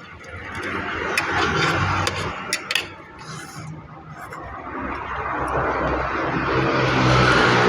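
Passing traffic: a rushing noise that swells and fades, then builds again to its loudest near the end, with a few sharp clicks about two and a half seconds in.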